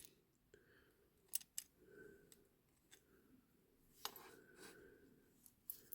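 Near silence broken by a few faint, sharp clicks and taps: the small metal parts of a diecast toy car being handled on the bench.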